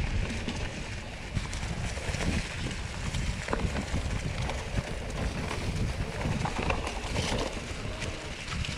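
Mountain bike riding downhill on a dirt and rock trail: a continuous low rumble of tyres over the ground with scattered clicks and rattles from the bike, mixed with wind on the microphone.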